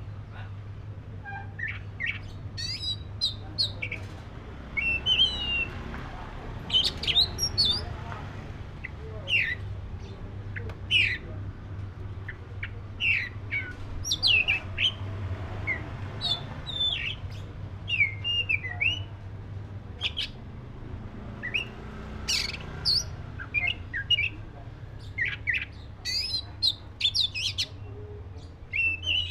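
Black-breasted oriental magpie-robin (kacer) singing: a varied run of short, sharp whistled notes and quick up-and-down pitch sweeps, in phrases with brief gaps. A low steady hum runs underneath.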